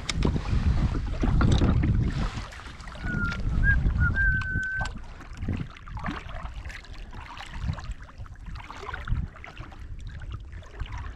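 Small waves lapping and slapping against the plastic hull of a sit-on-top fishing kayak (Ocean Kayak Prowler 13) at sea, rising and falling irregularly. A few short high whistles come about three to five seconds in.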